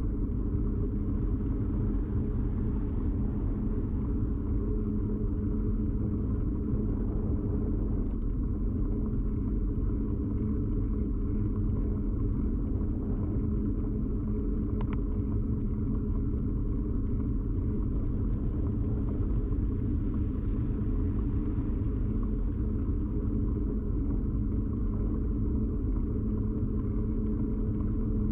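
Steady rumble and hum of a bicycle ride picked up through a camera fixed to the bike: riding vibration carried straight into the camera, with a faint tick about halfway through.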